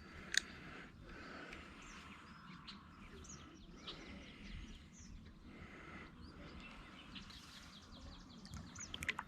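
Faint scattered bird chirps, short and high, over quiet outdoor background. There is a sharp click about half a second in and a few more clicks near the end.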